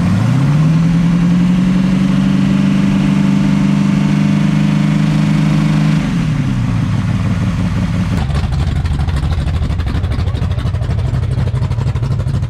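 A 355 cubic-inch small-block Chevy V8 with a solid roller cam is revved up and held at a steady raised speed for about five seconds. About six seconds in it drops back to idle.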